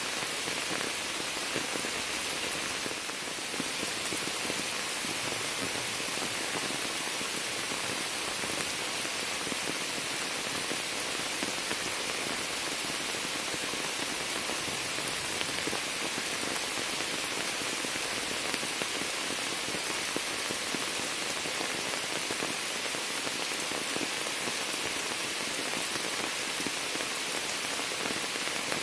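Steady rain falling on standing water and shrub leaves: an even hiss that holds the same level throughout.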